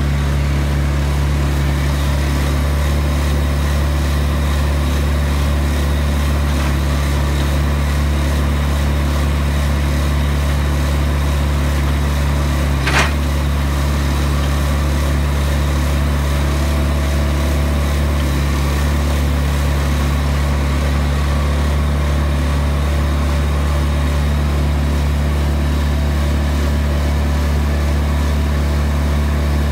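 Vermeer D16x20 Series II horizontal directional drill's diesel engine running steadily. A single sharp metallic knock comes about halfway through.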